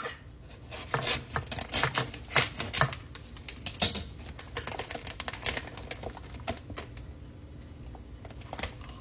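Plastic seafood-boil bag crinkling and crackling as it is handled, in irregular clicks that are busiest in the first four seconds and thin out after.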